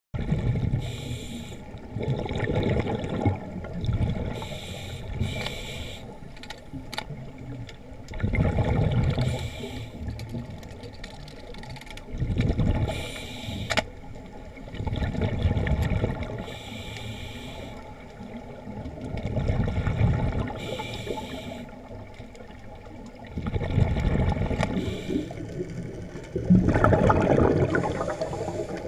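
Scuba regulator exhaust bubbles heard underwater, bubbling and gurgling in bursts every three to four seconds with the diver's breathing.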